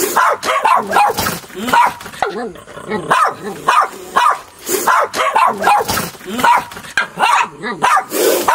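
Dog barking repeatedly in a fast, steady string, about two to three barks a second, alarm-barking at a cobra reared up in front of it.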